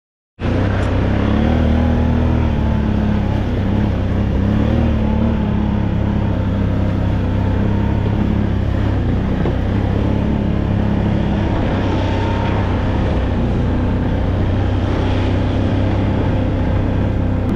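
A motor vehicle's engine running while under way: a steady drone whose pitch wavers up and down slightly, starting abruptly about half a second in.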